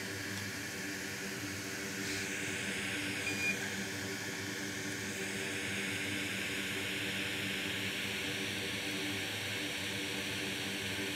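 Steady fan-like hiss with a faint low hum underneath, and a brief small sound about three and a half seconds in.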